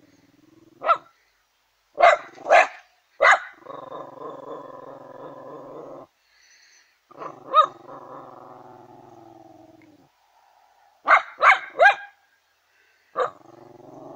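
A terrier barking sharply at a hedgehog, the barks often coming in quick runs of three, with long, low, steady growls between them.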